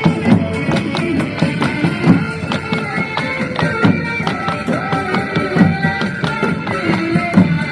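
Dance music with a steady percussion beat and a melody over it.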